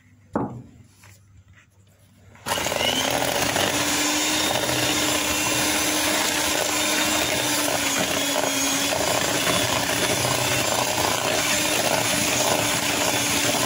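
After a short knock, an electric mixer switches on about two and a half seconds in and runs at a steady speed, its motor humming as the beaters whip eggs and sugar.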